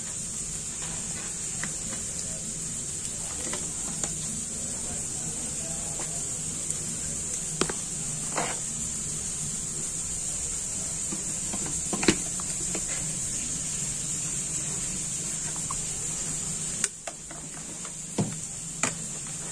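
Steady low hum with a high hiss over it, and a few light clicks and knocks scattered through. Near the end the hum briefly drops away while several knocks come close together.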